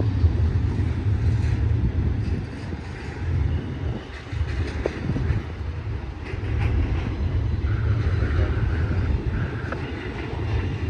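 Freight cars of a long BNSF intermodal train, container well cars and trailer-carrying spine cars, rolling past. A steady low rumble of steel wheels on the rail that swells and eases.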